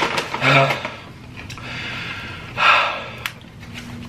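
A man breathing heavily while eating: a short voiced sigh about half a second in, then a loud breath out about two and a half seconds in. A few light clicks between them.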